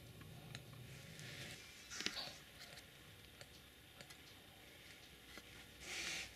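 Sleeping boxer dog making soft dreaming noises: faint mouth clicks and smacks, with a short breathy huff about two seconds in and another near the end.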